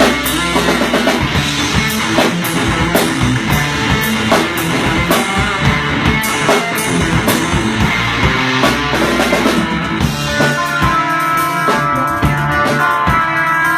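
Rock music with a drum kit and guitar; from about ten seconds in the drum hits thin out and held melodic notes come forward.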